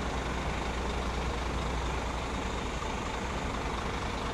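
Heavy diesel truck engine idling with a steady low hum.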